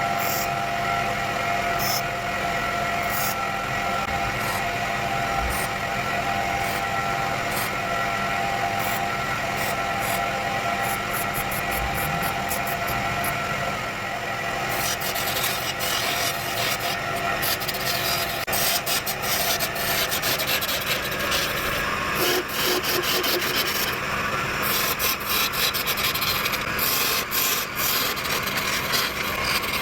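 Wood lathe running with a steady motor whine while a tool rubs and scrapes against the spinning wood, the scraping growing denser and noisier about halfway through.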